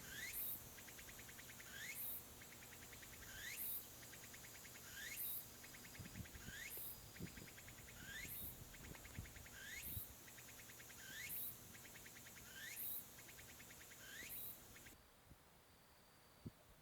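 A repeating animal call, about once every one and a half seconds: each a short rising chirp with a fast buzzy trill between calls, stopping suddenly near the end. A few soft low thumps come in the middle.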